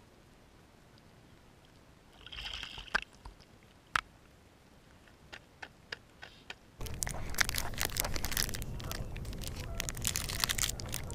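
A few sharp clicks and a brief rustle, then, about seven seconds in, a continuous crackling, crunching noise with a low rumble sets in.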